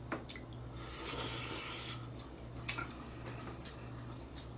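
A person slurping spaghetti noodles for about a second, then wet chewing sounds with small clicks, over a low steady electrical hum.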